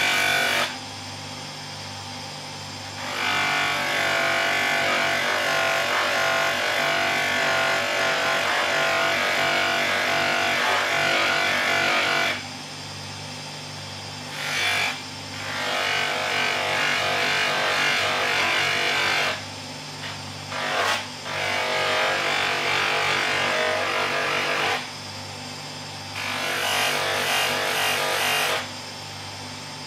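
Polishing machine running with a steady hum, its wheel charged with polishing compound. A steel chisel is pressed against the spinning wheel in stretches of several seconds, each a loud rough grinding hiss, with short lifts in between where only the motor hum is left.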